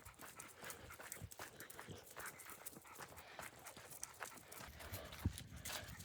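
Faint footsteps crunching and crackling irregularly on a leaf-littered forest trail, with one louder thump about five seconds in.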